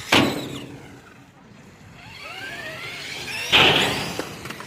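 Small RC truck's electric motor whining, its pitch falling and then rising again as the truck slows and speeds up, with two loud, brief rushes of noise, one just after the start and one near the end.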